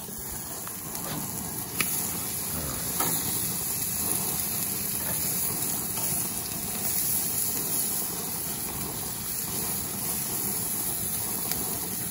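Baby octopus sizzling on a hot barbecue grill's grates, a steady hiss, with a few light clicks of metal tongs against the grate.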